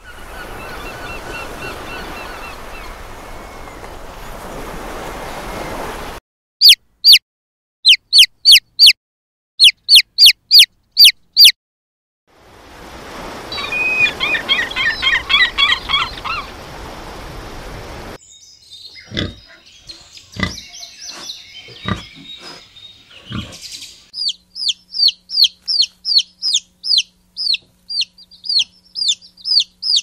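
A run of separate wildlife sound clips. First comes a steady rushing noise with faint calls, then loud sharp chirps in quick groups. Gulls then call over a rushing noise, followed by a string of clicks and knocks, and finally a chick peeping rapidly.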